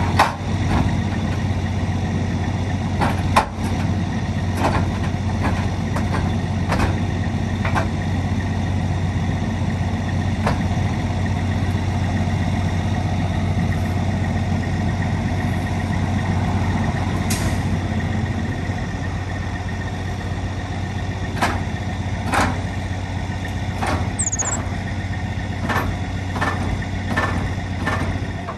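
A semi truck's diesel engine running steadily, with scattered sharp knocks and clanks.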